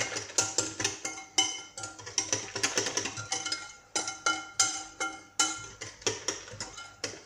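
Wire whisk beating a liquid batter in a glass bowl. Its wires strike the bowl's side in quick, irregular clinks that ring briefly with a glassy tone.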